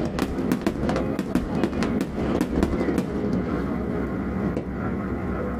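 Fireworks crackling: a rapid, irregular run of sharp pops that thins out and dies away about three seconds in, over a steady low rumble.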